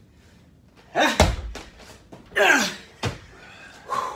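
A rubber slam ball thrown down onto a padded gym mat, landing with one heavy thud about a second in, with a grunt from the thrower at the moment of the throw. A breathy exhaled groan falling in pitch follows, then a short one near the end.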